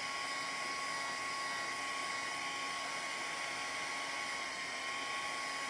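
Hair dryer running steadily, blowing on freshly applied chalk ink to dry it before heat setting.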